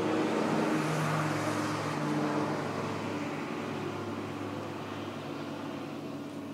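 Motor vehicle engine running steadily, slowly fading away.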